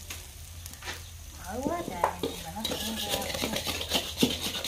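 Metal spatula scraping and clinking against a shallow steel pan as a bánh xèo (Vietnamese sizzling crepe) is worked over the fire, with the batter sizzling. The sizzle grows stronger a little past halfway.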